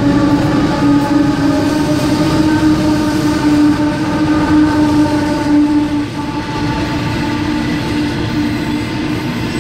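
CEY-class diesel freight locomotives passing close at speed, their engines giving a loud steady drone. After about six seconds the drone fades and the coal hopper wagons rumble by on the rails.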